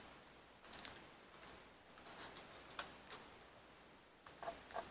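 Faint, irregular small clicks and ticks from fingers working a cured epoxy resin frog out of its silicone mold.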